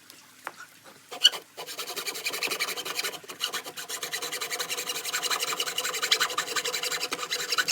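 Hand saw cutting through a wooden fence board in fast, even rasping strokes, starting about a second and a half in, just after a sharp knock.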